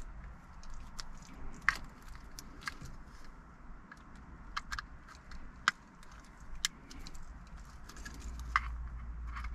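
Plastic plugs and loose cables of a car radio wiring harness handled by hand, with sharp clicks and rattles every second or two and the crinkle of a plastic bag.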